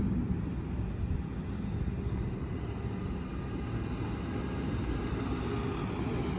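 Car driving on the road: a steady low engine and road rumble.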